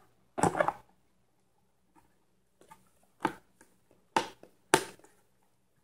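An electric longboard's black plastic battery cover being set onto the deck and pressed into place: a short scrape, then a few sharp plastic knocks and clicks, the loudest near the end.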